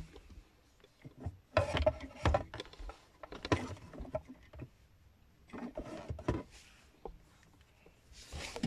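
Handling noise from a handheld digital multimeter and its test leads being picked up, set in place and fitted: scattered clicks, knocks and rustles in a few short clusters.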